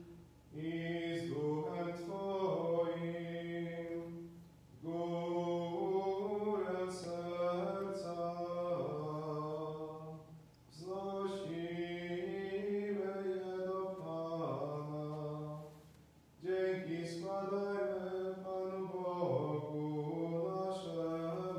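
A priest's solo male voice chanting the Mass text in Polish. The chant is held mostly on one note, in four long phrases with short breaths between them.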